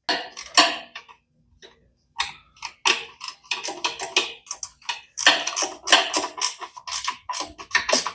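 Irregular run of sharp clicks, taps and light clatter from hand tools and small metal parts being handled, sparse at first and busier from about two seconds in.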